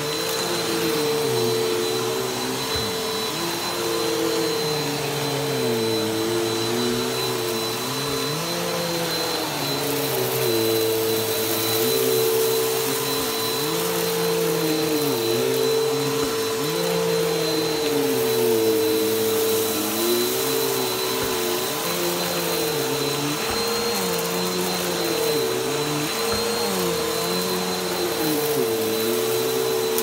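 Bagless upright vacuum cleaner running steadily as it is pushed back and forth over carpet: a constant motor whine, with lower notes that rise and fall every couple of seconds through the strokes.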